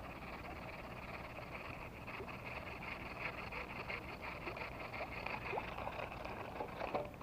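Frogs calling in a steady chorus. From about two seconds in, scattered small ticks and chirps sound over it.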